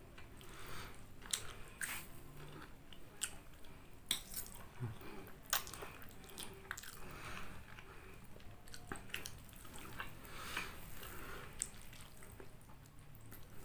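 A person chewing and slurping chicken noodles close to the microphone, wet mouth sounds broken by irregular sharp clicks.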